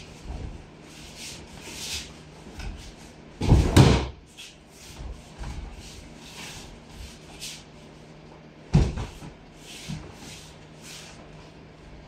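Aikido breakfalls onto tatami mats: a heavy thump of a body landing about three and a half seconds in and a sharper one near nine seconds, with a smaller knock just after. Between them, rustling and shuffling of training uniforms and bare feet on the mats.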